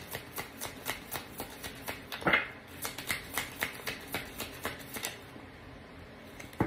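A tarot deck being shuffled by hand: a quick run of soft card slaps, about four or five a second, with one louder knock about two seconds in, stopping shortly before the end.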